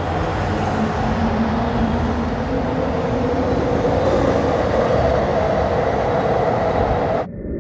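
A vehicle running with a steady rumble and a faint hum, cutting off abruptly near the end.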